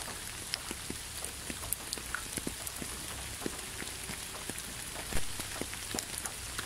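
Steady rain falling, with many separate drops tapping close by; one louder drop lands about five seconds in.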